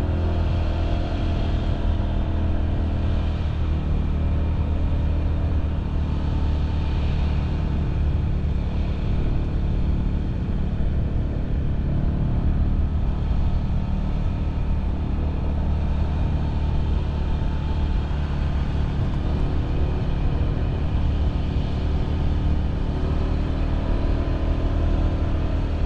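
Honda PCX scooter riding along at a steady speed: the single-cylinder engine drones at an even pitch over a low rumble, with no revving up or down.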